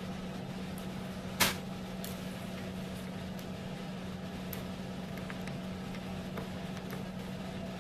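Small Phillips screwdriver taking out the screws that hold a laptop's screen panel: faint scattered ticks of metal on the screws, with one sharper click about a second and a half in, over a steady low hum.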